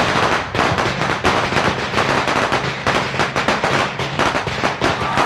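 A long string of Chinese firecrackers (鞭炮) going off, with a dense, irregular run of sharp cracks that overlap into continuous crackling.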